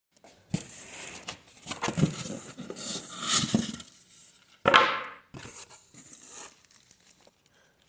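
Packaging being torn open and crinkled by hand, with irregular rustles and sharp clicks, one loud tear just before the five-second mark, then lighter rustling.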